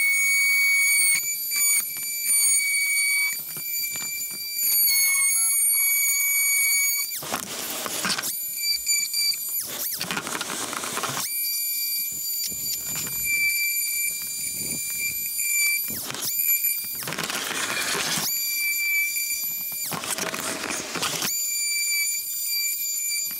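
Makita cordless oscillating multi-tool running with a steady high whine as its plunge-cut blade saws through a plastic trim panel. Several rasping stretches of about a second each come when the blade bites into the plastic.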